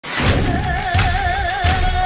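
Malayalam film song intro: a heavy bass beat about every 0.7 s under a long held melody note that wavers up and down.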